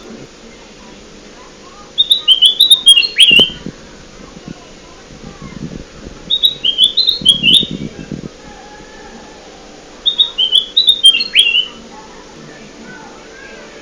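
Kutilang emas (a bulbul) singing three short phrases of quick, clear notes, each phrase ending in a falling note, about four seconds apart.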